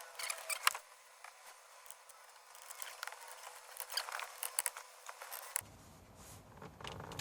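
Scattered light plastic clicks and ticks from a car's factory dash radio and its trim being tugged and worked in the dash, the unit not yet coming free.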